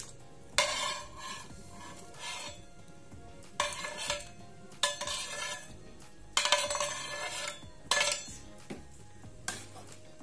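A metal ladle scrapes and clinks against a plate and a wok as soft pieces of cooked beef skin are pushed into simmering chili sauce and stirred in. There are about six sharp scrapes, a second or so apart.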